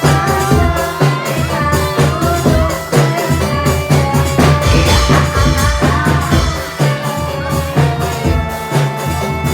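Live jaranan music in a 'telolet' arrangement: drums keep a steady beat under a melodic line of held notes, with sharp high percussion strokes.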